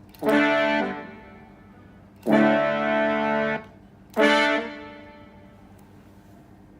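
Roland GR-20 guitar synthesizer playing a brass-like patch: three stabs, a short one, a longer held one in the middle and another short one.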